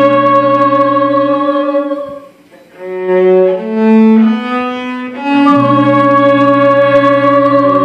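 Live band with trumpet, saxophone and guitars playing a slow passage: a long held chord, a brief drop about two and a half seconds in, a short run of changing notes, then another long held chord.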